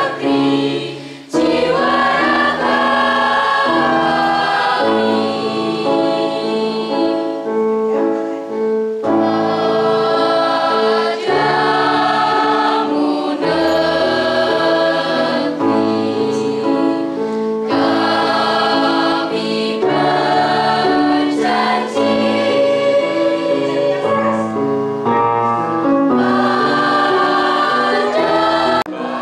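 Mixed choir of teenage girls and boys singing together in long held phrases, with short breaks between phrases.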